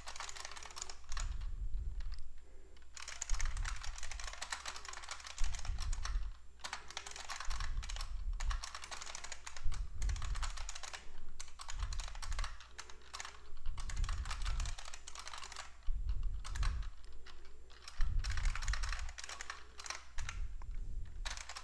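Typing on a computer keyboard: quick runs of key clicks broken by short pauses, with dull low thumps every second or two.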